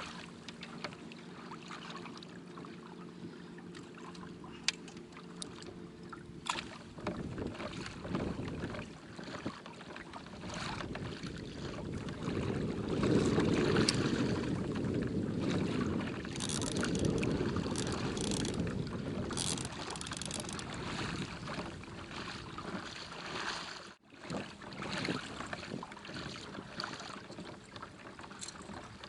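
Water rushing and lapping against a kayak hull, swelling in the middle and easing off, with scattered light knocks and a faint low hum at the start.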